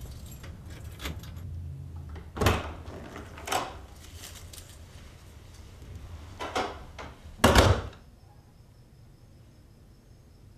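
A series of four knocks and clunks, a second or so apart in two pairs, the last and loudest about seven and a half seconds in. After it the low background rumble drops away, leaving a faint steady high tone.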